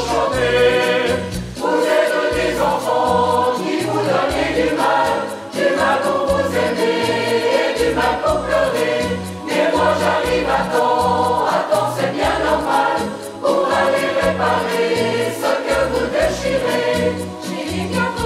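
Mixed choir of women's and men's voices singing together in harmony, over a low bass accompaniment that steps from note to note.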